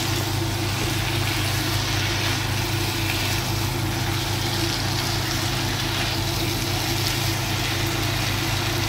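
Steady low hum with an even hiss over it. Underneath, spiced boiled potatoes are stir-fried on a high gas flame and stirred with a silicone spatula in a nonstick kadhai.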